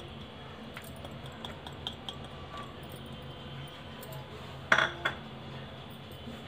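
Steady low kitchen room hum with a few faint ticks, then a sharp clink of kitchen dishware a little over halfway through, followed by a smaller clink.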